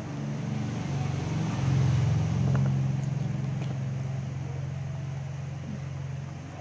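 Low steady motor hum, like an engine running, swelling about two seconds in and then slowly fading.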